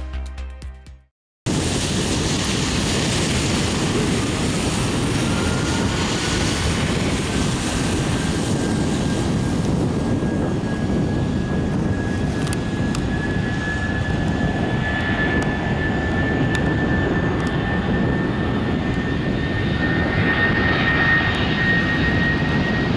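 Music fades out in the first second, then a Boeing 757-200's twin jet engines run at takeoff power during the takeoff roll. The result is a steady roar with a thin whine that rises slowly in pitch as the jet accelerates.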